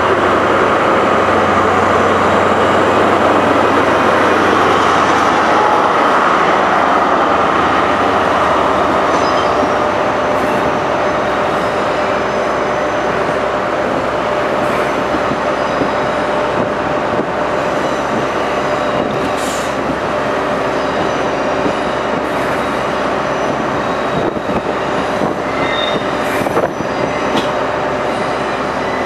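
A Great Western High Speed Train (InterCity 125) moving past along a platform. The Class 43 power car's diesel engine hums for the first few seconds, then the Mark 3 coaches roll by with steady wheel-on-rail noise, scattered clicks and a few brief wheel squeals.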